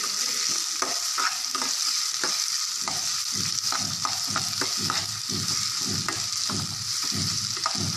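Chopped onions, garlic and green chillies sizzling in hot oil in a kadai while they are lightly sautéed. A steel ladle stirs them, scraping the pan in repeated strokes over the steady hiss of the frying.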